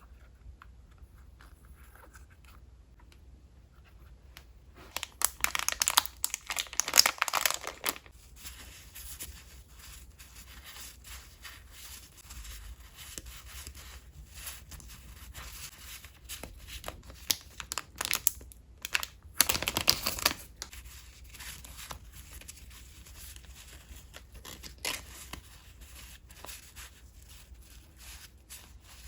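Paper goods and their packaging handled by hand, with two loud spells of tearing and crinkling, one from about five to eight seconds in and one around twenty seconds. Lighter rustling and small taps come between them.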